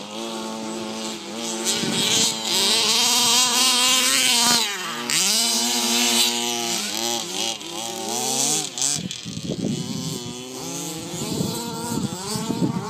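HPI Baja 1/5-scale RC car's small two-stroke petrol engine running at high revs, its pitch holding steady and then dipping and climbing again several times as the throttle is worked. It is loudest in the first half and grows rougher and lower in the last few seconds.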